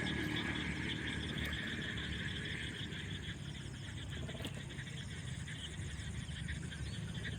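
A chorus of many frogs calling at once: a dense, steady din of rapid pulsing calls over low croaking.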